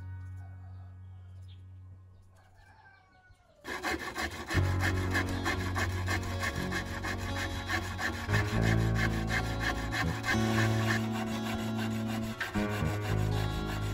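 Handsaw cutting through a wooden board in quick back-and-forth strokes, starting about four seconds in. Soft background music fades out before the sawing and carries on faintly beneath it.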